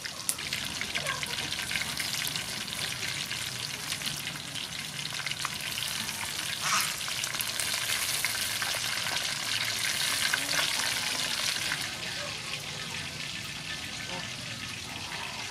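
Crumb-coated chicken wings deep-frying in hot soybean oil in a wok: a dense, steady crackling sizzle full of small pops, a little louder for several seconds in the middle.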